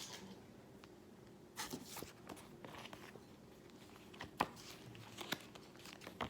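Faint handling noises: light crinkling and rustling with a few sharp little clicks scattered through, as of small plastic or paper items being handled.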